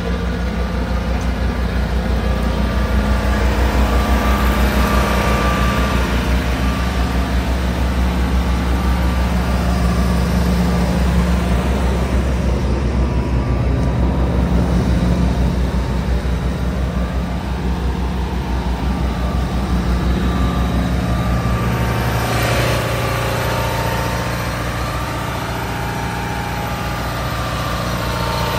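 Oilfield compressor package running steadily: the engine and compressor thrum with a fast, even beat. The tone shifts a little about three-quarters of the way through.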